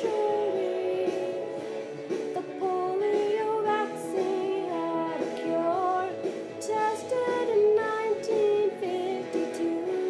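A woman singing a melody over an instrumental backing track.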